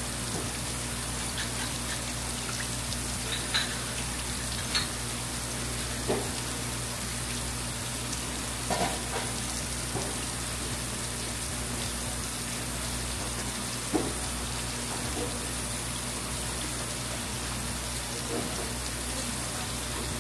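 Steady rush of running water, with a few light knocks now and then.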